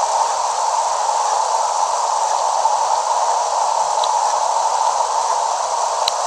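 Steady hiss of static-like noise at an even level, with two faint short ticks about four and six seconds in.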